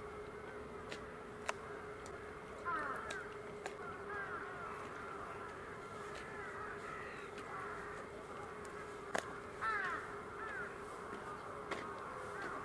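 Many birds calling at once, short overlapping calls with no pause, with a few sharp clicks and a steady low hum underneath.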